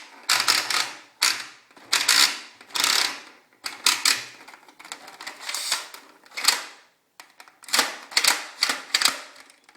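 Plastic clicking and rattling of a Buzz Bee Air Warriors Sidewinder toy dart blaster being worked by hand: a dozen or so sharp clicks in irregular clusters, with a brief pause about seven seconds in.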